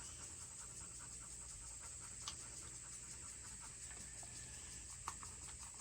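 Faint, steady high-pitched chirring of crickets, with two or three light clicks.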